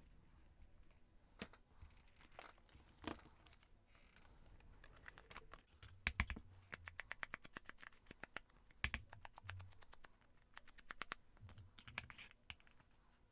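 Faint, quick runs of light taps as an ink pad is dabbed against a paper cutout to ink it, with scattered clicks and paper handling between the runs.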